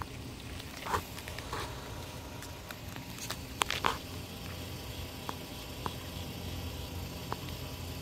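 Irregular soft taps and brief rustles in dry grass and leaf litter, the loudest a few clicks about three and a half to four seconds in, over a low steady rumble.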